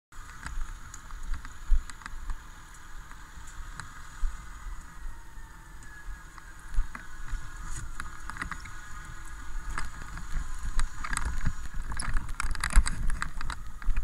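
Fire engine running with a steady whine while a 200-foot minuteman hose load is pulled from its hose bed: rustling, knocks and clatter that grow busier in the last few seconds, over handling thumps and wind rumble on the body-worn microphone.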